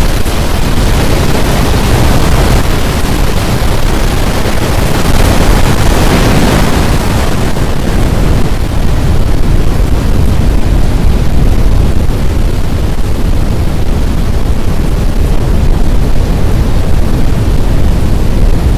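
Loud, rushing wind buffeting the microphone, with a stronger gust about six seconds in.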